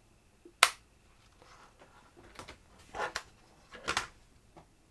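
Handling of a slim plastic Bluetooth keyboard around its battery compartment: one sharp click about half a second in, then several softer clicks and knocks.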